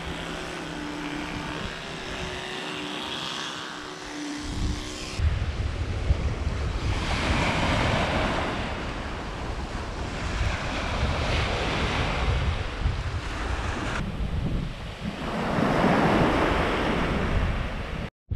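Ocean surf washing onto a beach in repeated swells, with strong wind buffeting the microphone. For the first five seconds a steady hum with a few held tones is heard instead, before an abrupt cut.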